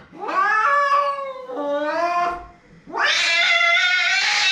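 Domestic cat yowling as it is held down for a veterinary examination: two long, wavering yowls, the second starting about three seconds in. The aggressive, distressed cry of a cat fighting restraint.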